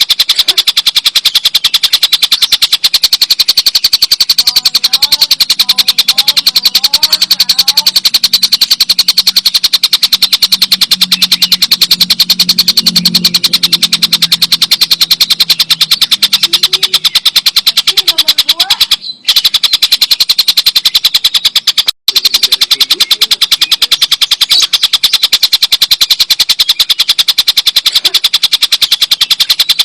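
Tengkek buto kingfisher giving its long, loud cackling chatter: a rapid, steady rattle of harsh repeated notes. It cuts out briefly twice in the second half.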